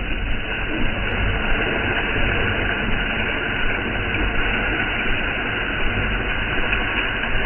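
A machine engine running steadily at constant speed, with a low rumble.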